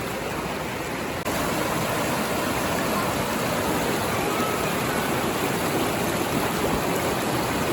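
River water running: a steady rush that gets louder about a second in.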